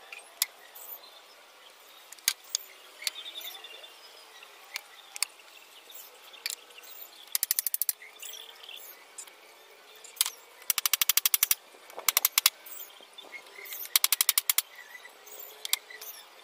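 Sharp knocks and several half-second bursts of very rapid clicking as bamboo poles are handled and fastened into a greenhouse frame; faint bird chirps behind.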